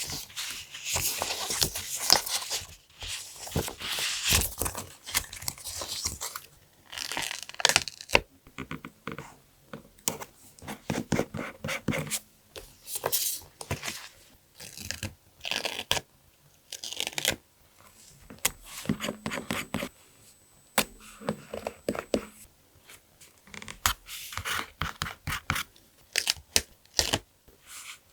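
Paper being handled and torn in short bursts of rustling and tearing, broken by small sharp clicks and taps.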